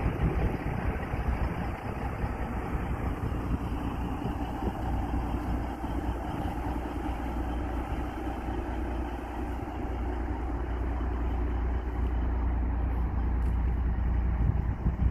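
Big diesel engine idling steadily with a low rumble.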